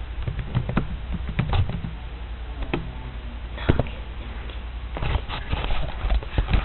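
Irregular light clicks and taps from a computer mouse and keyboard, with a few louder knocks, over a steady low hum.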